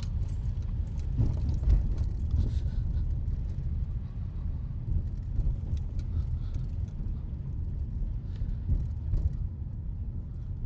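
Car driving slowly over ice-packed, snow-covered streets, heard from inside the car: a steady low rumble of engine and tyres with a few faint knocks scattered through it.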